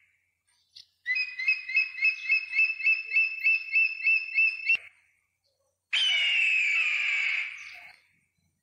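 Eagle calls: a quick chattering run of about fifteen high piping notes, each with a falling hook, cut off abruptly. About a second later comes one long harsh scream that falls in pitch and fades out.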